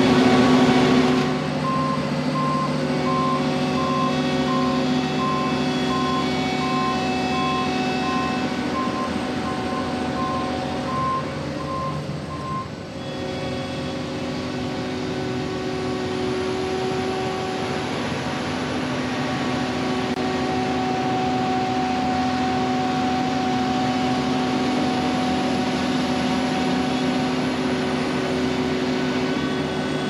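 John Deere 9770 STS combine's engine running steadily as the machine drives over rough ground. A warning alarm beeps about one and a half times a second from about two seconds in until about twelve seconds in.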